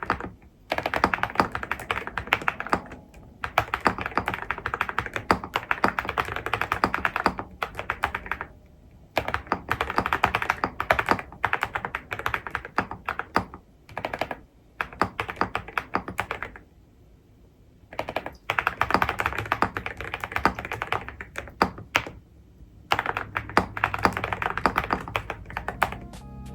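Typing on an Akko 5098B mechanical keyboard with Cerakey V3 ceramic keycaps and Piano switches: fast runs of key clicks in bursts, broken by short pauses.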